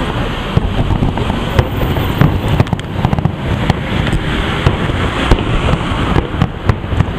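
Aerial fireworks bursting: a rapid, irregular string of bangs and crackles over a steady low rumble.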